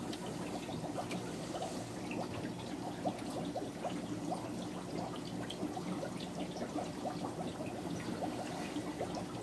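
Aquarium filter water trickling and bubbling steadily, with many small irregular bubble pops, over a low steady hum.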